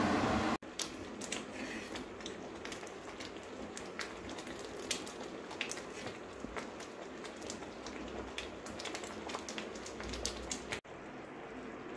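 Pineapple jam boiling hard in a pan, its thick bubbles bursting with many irregular pops and spatters over a steady hiss. The popping stops abruptly near the end, leaving a quieter hiss.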